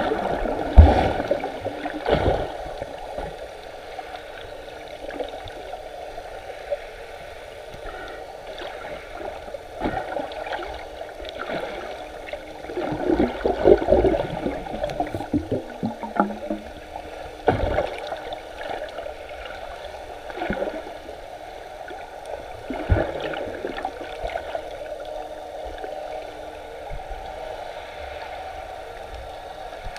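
Underwater ambience picked up by a submerged camera: muffled sloshing and gurgling of sea water, busiest about halfway through, with a few sharp knocks.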